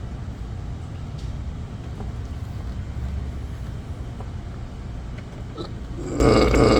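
Steady low hum of a running motor in the repair shop, with a few faint ticks. About six seconds in, a loud rushing hiss starts abruptly, as when a spray gun under test is triggered.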